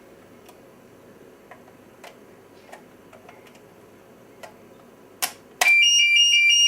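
Faint clicks of a test key working a manual call point, then a sharp click about five and a half seconds in as the call point trips. The fire alarm sounder starts at once, loud, with two high tones alternating rapidly.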